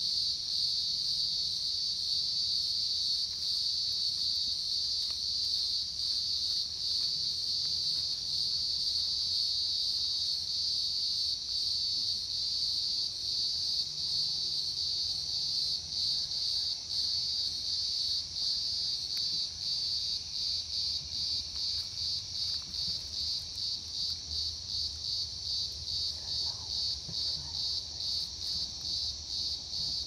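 Cicadas singing: a continuous high-pitched buzz that, about twenty seconds in, turns into an even pulsing of about two beats a second.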